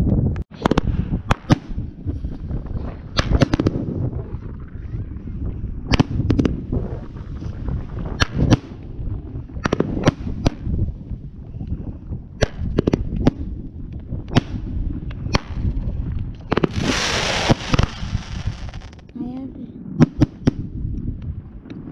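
Two 500 g consumer fireworks cakes firing together: a rapid, irregular series of sharp launch shots and bursting reports over a low rumble. A loud hissing rush lasts about two seconds late on.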